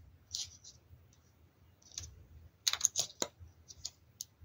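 Faint clicks and taps of fingers handling a miniature Zuru Mini Brands hardcover book, opening the cover and spreading its pages, with a quick run of clicks about three seconds in.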